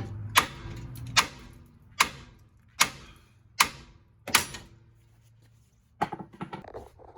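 Six sharp, evenly spaced metallic taps a little under a second apart, each with a short ring, followed about six seconds in by a quick flurry of lighter clicks.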